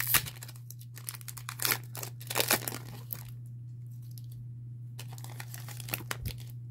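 Foil wrapper of a Pokémon card booster pack being torn open and crinkled: a quick run of tearing and crackling in the first three seconds, then a few lighter rustles near the end.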